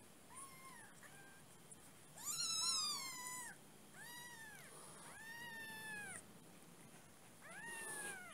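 Very young kitten, about 18 days old, mewing: a series of about six high, arching mews, the loudest and longest about two seconds in.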